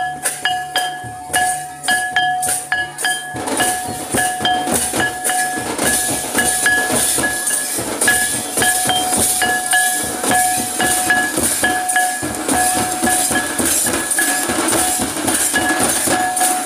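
Live folk dance music: hand drums beating a steady rhythm, with a ringing metallic clink on the beats. It grows denser and louder about three seconds in.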